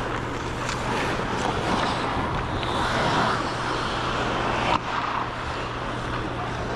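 Ice skates gliding and scraping over the rink, picked up by a skater's camera, over the steady hum of a large arena. A single sharp knock nearly five seconds in.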